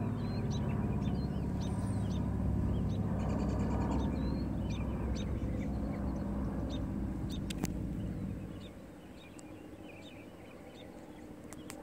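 Piston engines of distant WWII-era warplanes droning overhead, a steady low hum that fades away about eight seconds in. Birds chirp throughout.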